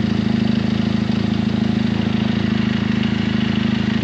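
Benelli 502C's parallel-twin engine idling steadily, heard close to its stock twin-outlet silencer.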